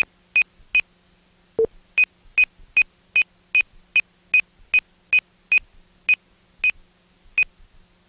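Flight-computer software's sound synthesizer beeping: short, high, evenly spaced beeps about two and a half a second, with one lower beep about a second and a half in, the beeps spacing out near the end. These are its audio cues to the pilot about flight parameters and the direction to a detected thermal.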